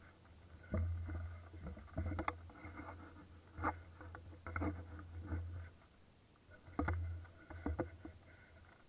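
Footsteps through dry leaf litter and undergrowth, with brush rustling and the dull knocks of a rifle-mounted camera being jostled, coming irregularly about once a second with a short lull near the end.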